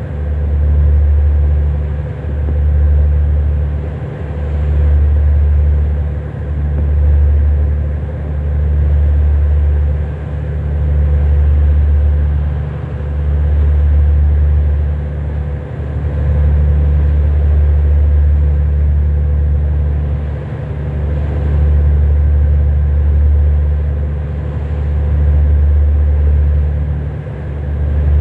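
Deep, steady engine rumble with a faint steady hum above it, swelling and dipping about every two seconds.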